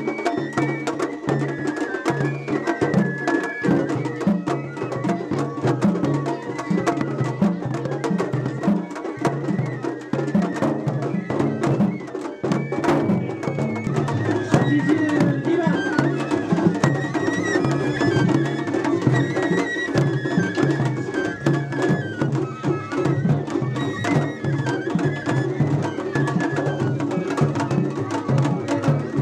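Large taiko drum (ōdaiko) on a festival float beaten with wooden sticks in a repeating festival rhythm. A high melody of festival music plays over it.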